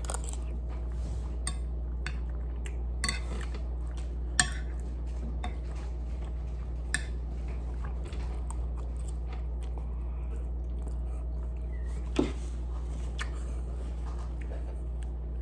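Metal spoon clinking against a ceramic plate while eating, with about half a dozen sharp clinks spread through and some chewing, over a steady low hum.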